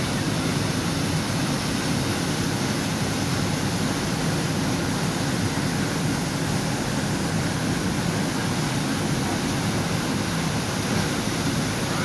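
Steady rushing of water from a waterfall and the foaming stream running over rocks below it, an even wash of noise with no breaks.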